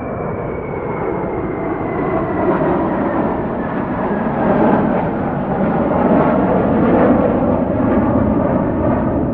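Airplane engines running at takeoff power: a steady, dense engine noise that slowly grows louder, with a faint high whine sliding gradually down in pitch.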